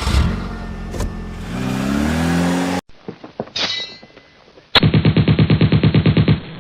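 An engine starting up and revving, its pitch rising, then cut off suddenly. Scattered clatter follows, then a fast, even mechanical rattle of about eight beats a second, like a jackhammer or machine gun.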